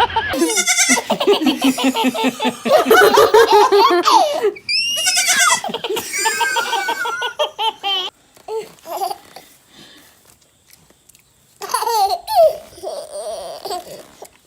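A baby laughing hard in long runs of belly laughter, dropping away for a few seconds past the middle, then laughing again near the end.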